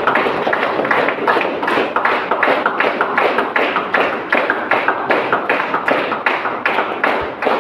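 Steady rhythmic clapping, about three claps a second, over a dense continuous din.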